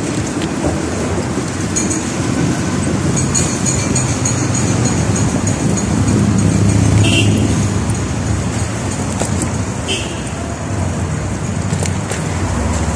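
Steady street traffic noise from cars and trucks on a busy city road, a low rumble that carries on throughout.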